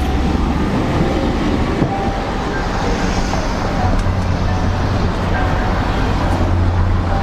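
City street traffic: cars and a streetcar running past, a steady rumble that grows heavier about four seconds in, with soft piano music under it.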